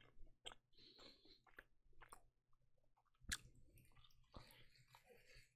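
Faint close-miked chewing of a burger: soft wet mouth smacks and clicks, with a sharper click a little over three seconds in as he bites into it again.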